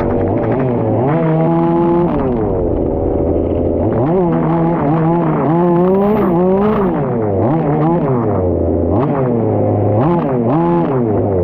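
The petrol engine of a 1/5-scale RC Formula 1 car revving up and down over and over, as it accelerates and lifts off while being driven round a wet track. Its pitch climbs and falls about six times.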